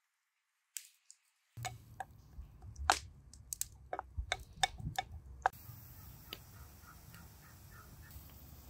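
Sharp clicks and knocks in quick succession, then a short run of about half a dozen quick, evenly spaced calls from a bird.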